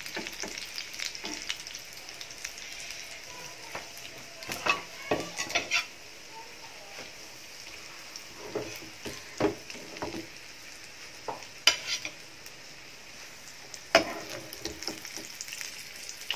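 Batter-coated spring rolls sizzling steadily in shallow oil in a nonstick frying pan. A metal slotted spatula scrapes and clicks against the pan as the fried rolls are lifted out, with sharp knocks several times along the way.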